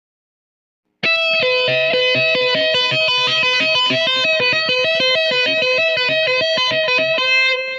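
Electric guitar rapidly alternating between two notes, about three swaps a second, starting abruptly about a second in and cutting off near the end.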